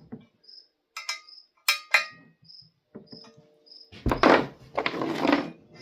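Crickets chirping steadily in short, evenly spaced chirps. A few sharp metallic clinks of tools and metal parts come about a second in, and louder rustling and clattering handling noise follows near the end.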